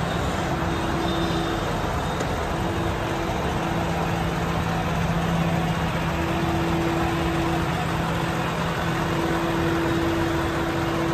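Diesel engine of a Volvo-chassis aerial ladder platform fire engine running steadily, with a constant low hum, the engine kept running while the boom is raised.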